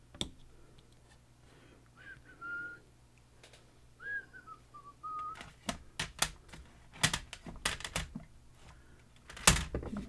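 Someone whistles two short, soft phrases, then small metal lock parts and tools click and tap in a quick irregular run, with the loudest click near the end.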